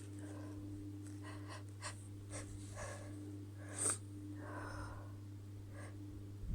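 A woman's hitching breaths as a sneeze builds: a string of short, sharp catching intakes, the loudest and sharpest just under four seconds in, followed by a longer breathy exhale.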